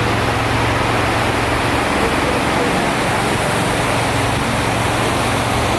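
Steady city street noise: a loud, even wash of traffic with a low engine hum underneath and faint voices mixed in.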